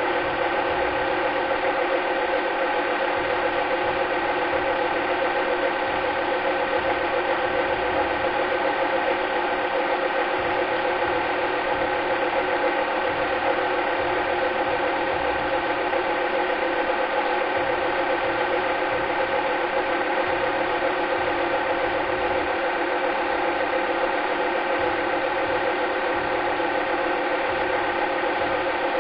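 Cine film projector running: a steady mechanical whirr with a hum and hiss that never changes.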